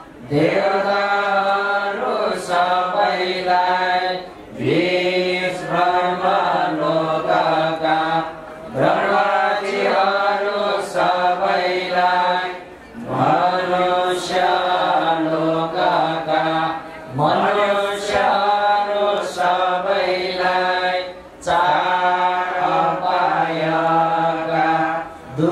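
Buddhist chanting by a male voice, sung in long held melodic phrases of about four seconds each, every phrase opening with a rising slide in pitch and ending in a short break for breath.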